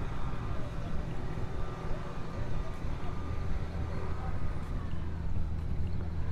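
Steady low engine rumble of vehicles, growing a little stronger about halfway through.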